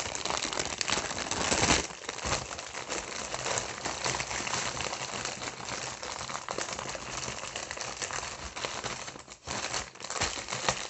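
Clear plastic packaging crinkling as it is handled: a plastic bag and a clear plastic tray of diamond-painting drills, with the loudest rustle just under two seconds in.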